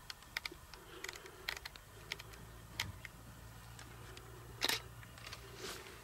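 A series of irregular sharp clicks and snaps, the loudest about four and a half seconds in, over a faint low hum in the middle.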